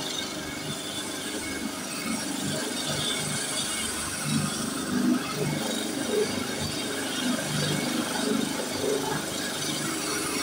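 AgustaWestland AW139 helicopter on the ground with its twin turboshaft engines running and main rotor turning: a steady high turbine whine over a broad rush of engine and rotor noise.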